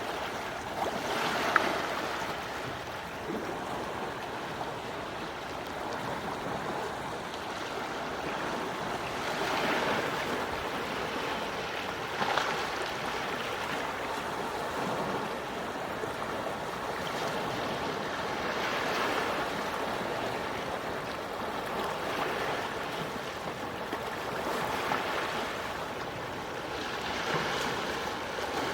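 Gentle waves washing onto the shore, an even rush that swells and falls back every few seconds.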